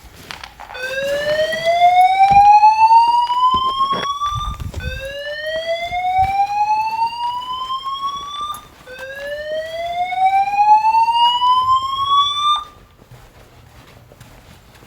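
A building fire alarm's voice-evacuation system sounds its slow-whoop evacuation tone: three rising sweeps, each climbing for about four seconds, then it stops.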